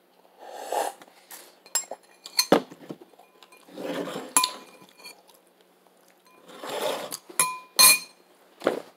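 Ceramic cereal bowl clinking sharply several times, some clinks ringing briefly, between short slurping sounds as the bowl is drunk from.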